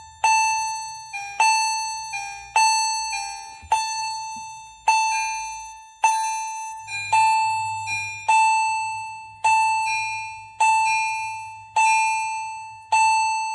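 Fire alarm chime strobes sounding the alarm signal: a repeating electronic ding about once a second that rings and fades after each strike. A second chime strikes slightly out of step, so some strikes come in close pairs.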